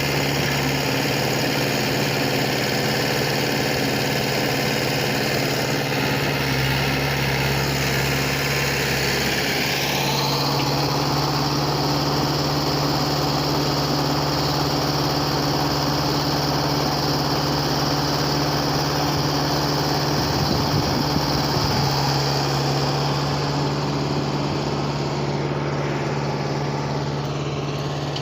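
Diesel engine of an earthmoving machine running steadily, with a steady low hum. About ten seconds in, a higher whine rises and holds, as if the engine or hydraulics take on more load.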